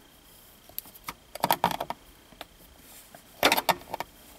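A flathead screwdriver clicking and scraping against the gear-shift boot's ring as it pries up the boot's retaining tabs. There are a few single clicks, then two quick clusters of clicks, about a second and a half in and again near the end.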